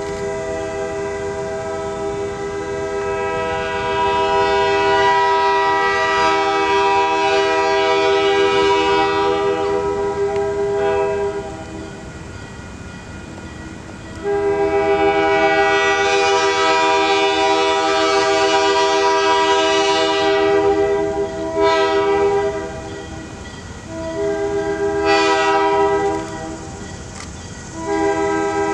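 Diesel locomotive air horn sounding a multi-note chord in long blasts: one of about twelve seconds, then after a short gap one of about seven seconds, then several shorter blasts near the end, with the train's rumble beneath. The horn belongs to the lead locomotive, Buffalo Southern 4212, an MLW C424.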